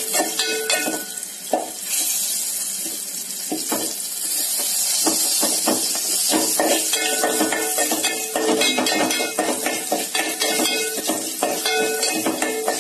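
Crushed garlic, curry leaves and cumin sizzling in hot oil in a steel pan as the tempering is fried, with a perforated steel spatula scraping and clinking against the pan as it is stirred. The sizzle grows louder about two seconds in.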